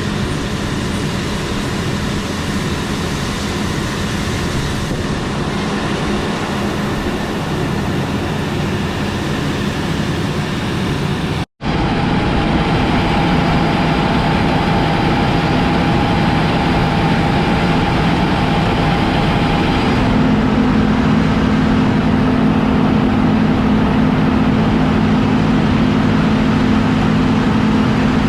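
Heavy farm machinery running steadily under load. The sound cuts out for an instant about eleven seconds in, then resumes slightly louder with a steady high whine over the engine hum.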